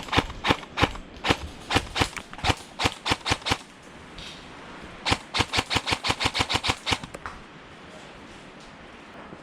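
Airsoft gun firing shot after shot as sharp clicks, about three a second for the first three and a half seconds, then a quicker run of about a dozen shots between five and seven seconds in.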